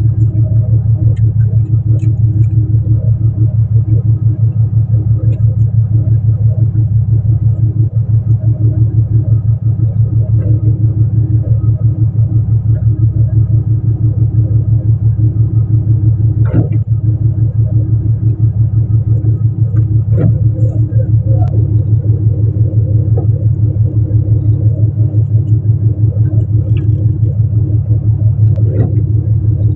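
A fishing boat's engine running steadily: a loud, low, even throb with a fast regular pulse, plus a few faint clicks from handling on deck.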